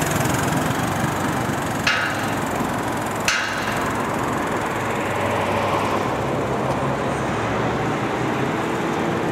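Motorcycle engine running steadily, with two sharp clicks about two and three seconds in.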